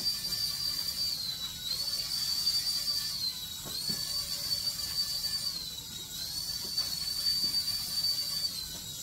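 The twin coaxial rotors and motors of a small Iron Man toy flying-figure helicopter running with a high-pitched whine. The pitch dips briefly about four times as the motor speed drops and recovers.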